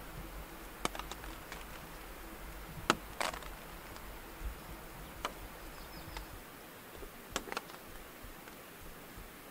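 Quiet ambience with a few scattered short, light ticks and taps, the loudest about three seconds in.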